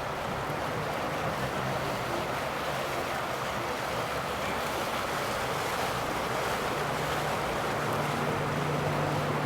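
Boat engine running over a steady rush of water wash and wind. A low, steady engine hum grows stronger near the end as a boat comes closer.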